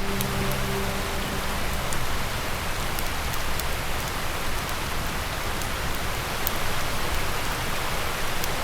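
Mountain river rushing over rocks: a steady, even roar of running water, with a few faint clicks on top.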